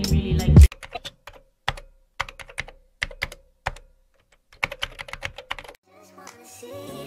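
Clusters of quick keyboard typing clicks with short gaps between them, a typing sound effect laid under on-screen text. Loud background music cuts off abruptly just before the clicks begin and fades back in near the end.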